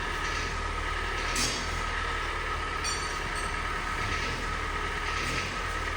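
Kia Sportage 3's G4NA 2.0-litre four-cylinder petrol engine running with a hard knock, not yet warmed up; the engine also burns oil, and the knock goes with the cylinder scoring it is in for.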